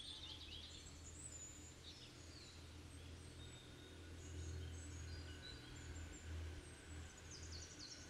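Faint, scattered high bird chirps over a low steady hum.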